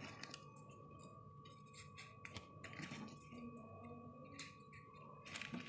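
Faint paper rustling and soft irregular clicks as folded paper triangle pieces of a 3D origami model are handled and pushed into place between the pieces of a row.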